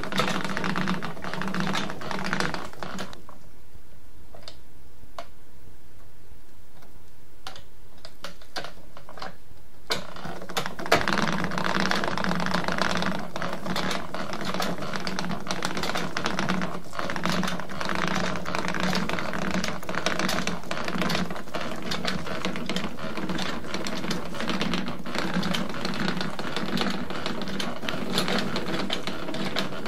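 Nineteenth-century wooden treadle spinning wheel running: a rapid wooden clatter of the turning parts over a low hum that pulses with each turn of the wheel, about one and a half times a second. About three seconds in it drops to scattered clicks, and it picks up again about ten seconds in.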